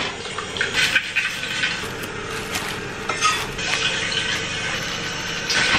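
Plastic oven roasting bag crinkling and rustling as it is pulled open over a ceramic baking dish, with irregular sharp crackles and light clinks of the dish.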